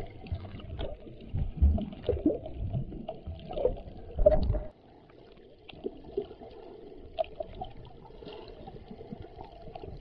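Muffled underwater noise picked up by a submerged camera: rushing, sloshing water and knocks from movement through the water, loudest a little before halfway. It then drops suddenly to a quieter steady hiss with faint scattered clicks.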